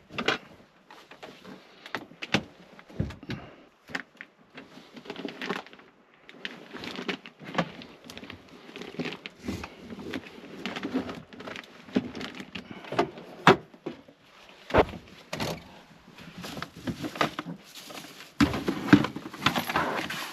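Objects being handled and set down at close range: an irregular run of sharp knocks and clicks with rustling in between, busiest near the end.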